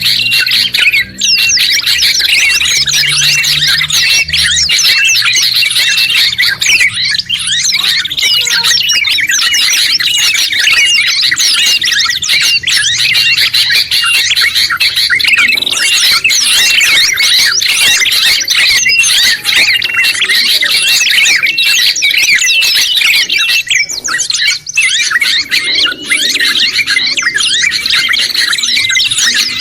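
A dense, continuous mix of songbirds chirping and trilling: a combined recording of cage songbirds such as sooty-headed bulbul, yellow-vented bulbul and oriental white-eye, with many quick, high notes overlapping without pause.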